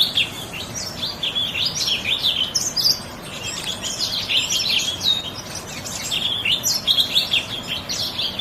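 A finch singing a fast, continuous run of high twittering chirps and trills.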